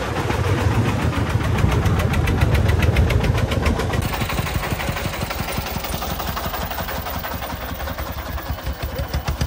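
Single-cylinder diesel engine of a loaded công nông farm dump truck chugging close by. About four seconds in the sound changes from a heavier low rumble to a clear, even run of knocking pulses.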